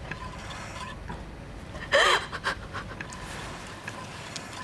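A woman crying at a bedside: sobbing breaths, with one loud wavering sob about two seconds in. A faint steady tone sounds in the background.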